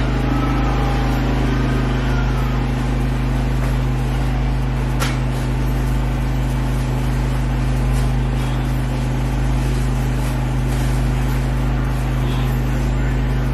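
Steady low mechanical hum at an even level, with a faint click about five seconds in.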